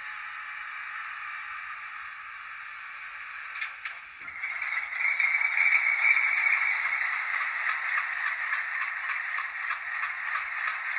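DCC sound decoder in an HO scale Alco diesel model playing its prime-mover sound through the model's small speaker: a steady idle, two brief clicks a little under four seconds in, then the engine sound grows louder with a rapid pulsing throb.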